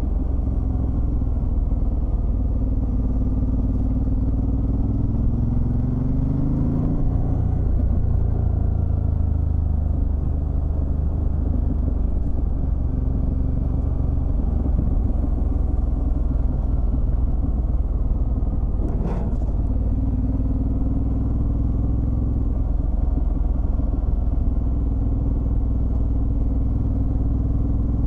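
Ducati Multistrada DVT's V-twin engine running under way, climbing in pitch as it accelerates about four to seven seconds in, then dropping back and holding steady. A short sharp noise cuts through about nineteen seconds in.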